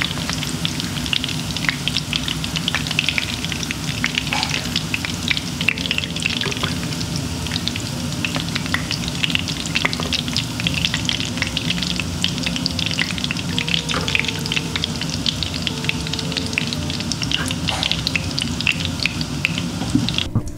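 Battered tempeh-and-corn fritters (bakwan) frying in a pan of hot oil: a steady, dense sizzle and crackle of small pops.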